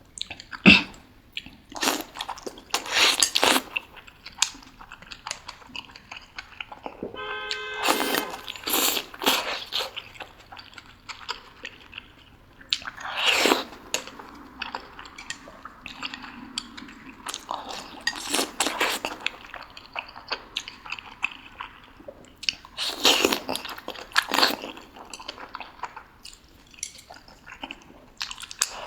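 Close-miked eating of boiled dumplings in sour soup: chewing and biting in irregular bursts, with pauses between mouthfuls.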